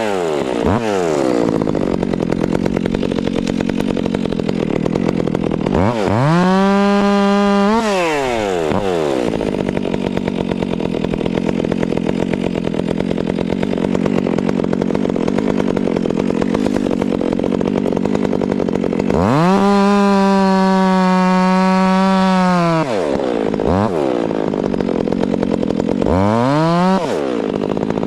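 Two-stroke chainsaw cutting wood at full throttle, its pitch pulled down and rougher under load through long cuts. It revs freely with a high steady whine between cuts, about six and twenty seconds in, and drops off briefly near the end before revving up again.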